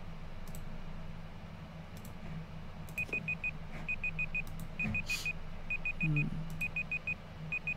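Countdown timer alarm beeping as the time runs out: quick groups of four short high beeps, about one group a second, starting about three seconds in. A low steady hum and a few faint clicks lie underneath.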